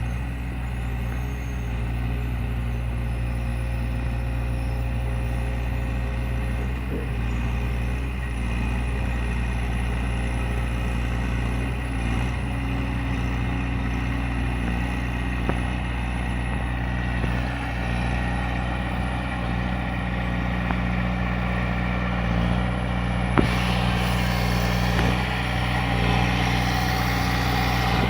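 Engine of a water hyacinth harvesting machine running steadily with a low, even drone. A single sharp click comes about 23 seconds in, after which a brighter hiss joins the engine sound.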